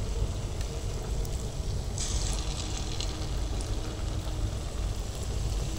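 Taler bora (palm-fruit and semolina batter fritters) deep-frying in hot oil in an aluminium karai: steady bubbling over a low rumble, with a louder burst of sizzling about two seconds in that lasts a second or so.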